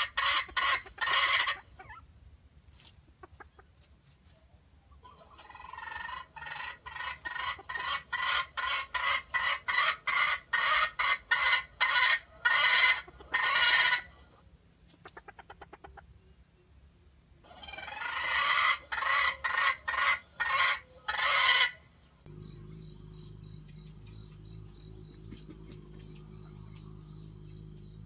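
A hen clucking in long runs of sharp clucks that speed up and grow louder as each run goes on. Near the end it gives way abruptly to a steady drone of insects.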